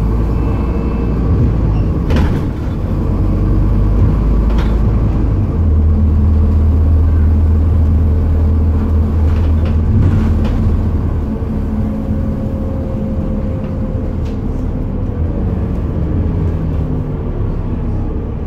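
Scania N230UD Enviro400 double-decker bus's five-cylinder diesel engine running under way, heard from inside the saloon. A deep drone swells from about five seconds in and eases after about eleven seconds, with a few short knocks and rattles along the way.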